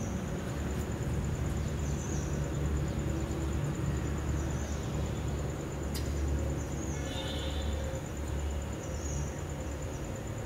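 Steady low background rumble, with a single sharp click about six seconds in.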